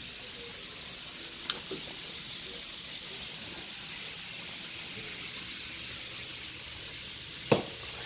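Chicken wings frying in hot oil, a steady sizzling hiss. A small click comes about a second and a half in, and a sharper, louder click near the end.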